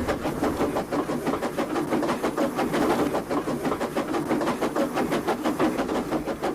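Steam locomotive chuffing sound effect, a steady, fast beat of about seven chuffs a second.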